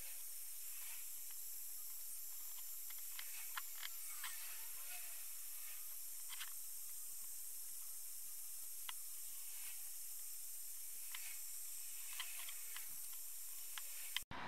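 Light, scattered clicks and taps of small metal parts being handled and fitted against a cast-iron vice, over a steady high hiss.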